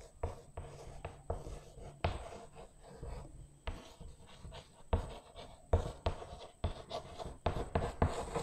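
Chalk writing on a chalkboard: a faint, irregular run of short taps and scratches as the chalk forms letters.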